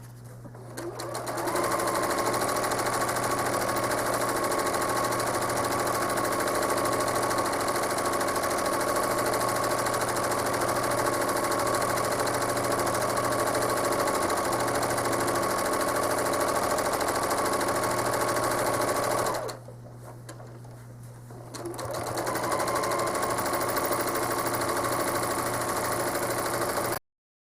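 Home sewing machine stitching at a steady high speed during free-motion quilting. It winds up about a second in, stops for about two seconds around two-thirds of the way through, then starts stitching again until the sound cuts off suddenly near the end.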